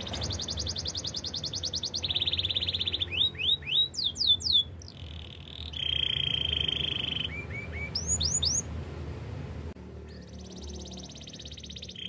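Canary singing: a run of rapid trills, each held at one pitch for a second or two before switching to a higher or lower trill, broken by quick rising and falling sweeping notes. The song drops to a quieter trill near the end.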